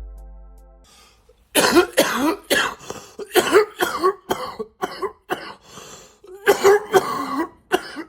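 Short music fading out in the first second, then a person coughing in a long fit of rapid, repeated coughs, some with a hoarse rasp.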